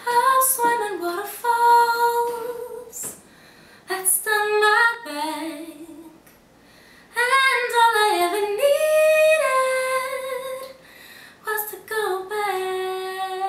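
A woman singing without accompaniment, in several phrases separated by short pauses, with sliding runs and long held notes.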